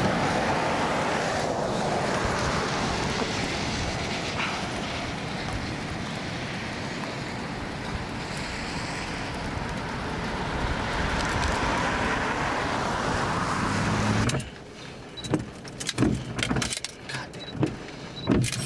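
Steady rushing wind and road noise of a moving vehicle. About 14 seconds in it cuts off abruptly, leaving a quieter stretch of scattered clicks and knocks.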